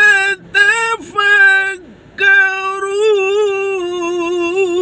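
A single voice reciting the Quran in melodic tilawah style, unamplified, drawing out long held notes with wavering ornaments. It pauses briefly twice and takes a breath about two seconds in.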